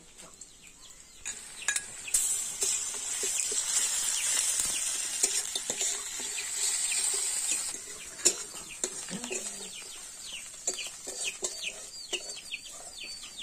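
Dried fish sizzling in hot oil in a steel wok, with the metal spatula clicking and scraping against the pan as it is stirred; the sizzle fades about eight seconds in. After that, chickens peep in rapid, high, falling chirps alongside the occasional spatula click.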